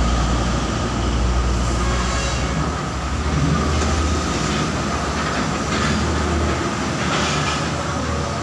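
Busy road traffic with the low engine rumble of a heavy truck passing close by, steady throughout.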